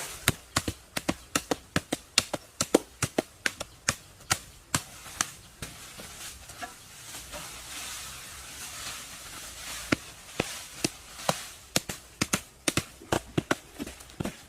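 Rapid series of sharp knocking strikes, about two to four a second, easing off for a few seconds in the middle before picking up again.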